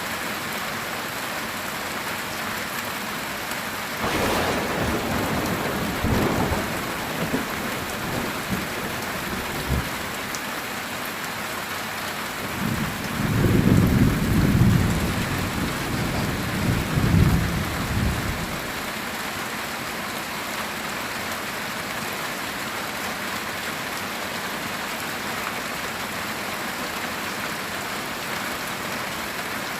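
Steady heavy rain on a metal tin roof, with thunder. A sharp crack about four seconds in is followed by rumbling, then a louder, deep rolling rumble comes in the middle and fades out.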